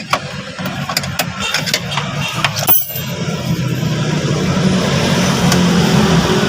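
Several sharp metallic clicks and taps, then a steady engine-like running sound that starts about three seconds in and grows louder.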